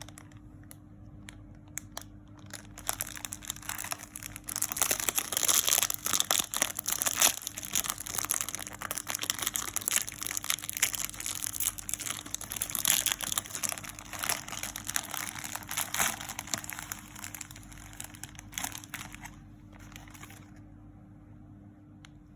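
Oreo cookie packaging being handled and unwrapped: dense crinkling that starts about three seconds in, is loudest in the middle, and dies away a couple of seconds before the end.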